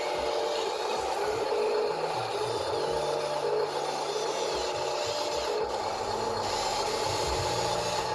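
Radio-controlled construction models working: small electric motors whine in short on-and-off runs over a steady higher whine, with a rattling, scraping clatter of gears and moving parts.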